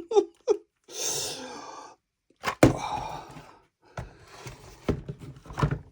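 Handling noise: several sharp clicks and knocks with rustling between them, after a short breathy sound near the start.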